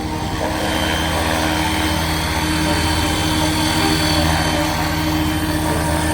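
Align T-Rex 550X electric RC helicopter flying, with a steady rotor chop and motor whine.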